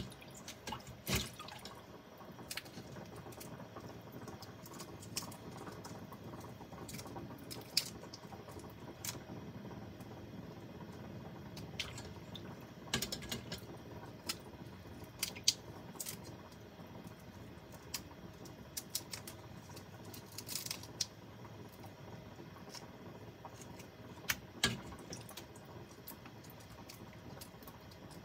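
Raw shrimp being peeled by hand over a stainless-steel mesh strainer in a sink: scattered sharp clicks and small wet sounds as the shells come off.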